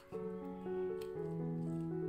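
Background music: a simple melody of held notes.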